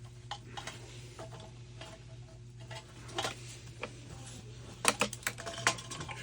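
Parts of a gas water heater's burner assembly being handled: irregular light clicks and taps, with a quick cluster of sharper clicks about five seconds in, over a steady low hum.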